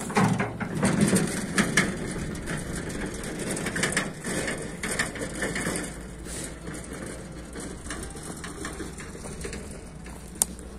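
Footsteps crunching over dry grass, fallen leaves and cracked soil, loudest at first and thinning out after about six seconds, with one sharp click near the end.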